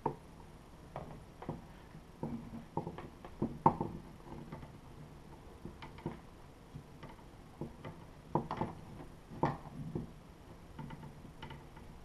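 Light, irregular clicks and taps of 3D-printer kit parts being handled and fitted by hand during assembly, with a few louder knocks about a third of the way in and again about three-quarters of the way in.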